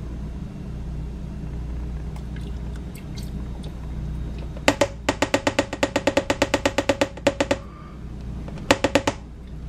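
Half and half glugging out of its container as it is poured into the soup pot: a fast run of glugs, about nine a second, lasting some three seconds, then a short second run near the end. A steady low hum sits underneath.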